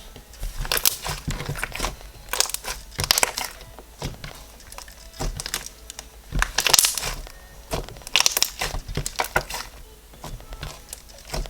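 Floam slime packed with foam beads being squeezed and pressed by hand, giving irregular spells of crackling from the beads and small pops of trapped air pockets, with short pauses between handfuls.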